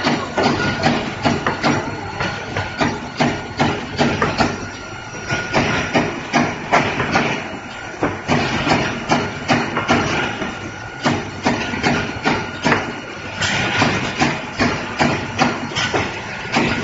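Cardboard partition assembling machine running: its mechanism clatters in a fast, steady rhythm of sharp knocks, about two to three a second, as it slots paperboard strips into grid dividers, over a steady high machine whine.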